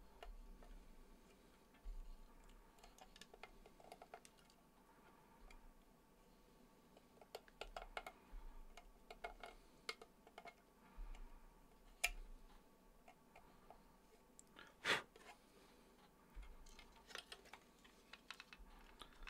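Faint, scattered clicks and scrapes of a small hand tool and fingers on a plastic enclosure, cleaning up the rough edge of a freshly drilled hole. There is a sharper click about twelve seconds in and a louder knock about fifteen seconds in.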